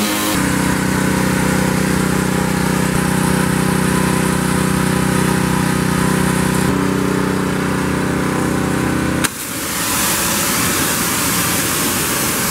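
Simpson MegaShot gas pressure washer's Honda GC190 engine running steadily. About nine seconds in there is a sharp click, and then the loud hiss of the high-pressure water jet spraying the deck boards takes over.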